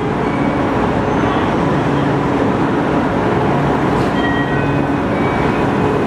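JR West 221 series electric train standing at the platform, its onboard equipment humming steadily under station noise. About four seconds in, as the doors close, there is a faint click and a few short high tones.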